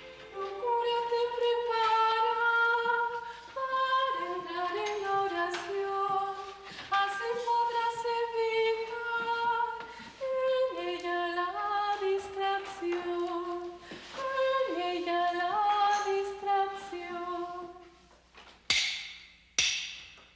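A woman singing a slow hymn, long held notes stepping up and down. Near the end, three sharp knocks, about a second apart.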